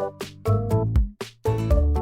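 Cute, bouncy background music with a steady beat and short, clipped notes.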